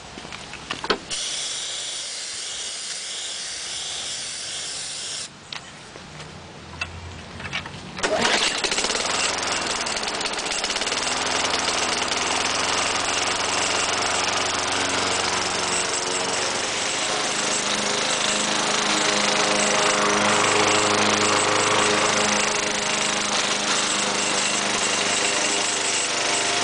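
A hiss of starter fluid being sprayed into the intake for a few seconds. Then, about eight seconds in, a 5-horsepower lawn mower engine catches and keeps running, its speed rising and falling, fed only on starter fluid because there is no gasoline.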